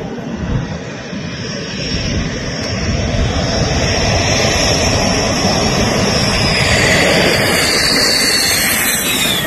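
Dassault Rafale fighter jet's twin turbofan engines coming in to land. A steady roar grows louder as the jet nears and peaks about two seconds before the end, while a high whine falls in pitch as the jet passes.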